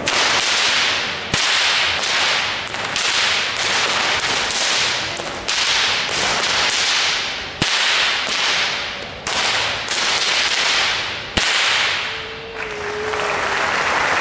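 A pair of whips cracked in a fast, continuous routine, two or three sharp cracks a second ringing in a large hall. The cracking stops about twelve seconds in and applause begins.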